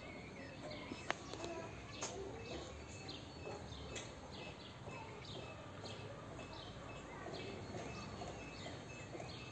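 Small birds chirping, a short falling note repeated again and again, over a steady outdoor background noise. A single sharp click sounds about a second in.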